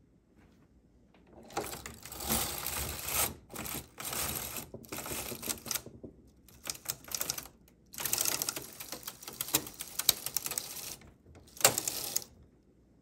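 Singer 328 memo-matic knitting machine carriage being pushed across the metal needle bed to knit a row: a dense clicking clatter of the latch needles running through the carriage cams. It starts about a second and a half in and goes in several strokes with short pauses, stopping shortly before the end.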